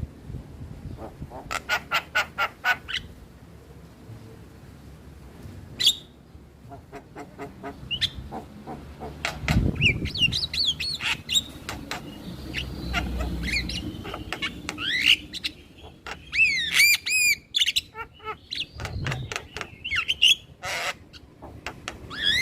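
Male Javan myna calling: a quick run of clicking notes, then a mix of harsh squawks and bending whistled notes, with a harsh rasping squawk near the end.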